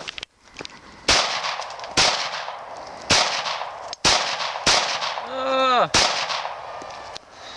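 Six pistol shots fired at uneven intervals, roughly one a second, each followed by a short echoing tail. A brief pitched vocal cry comes between the last two shots.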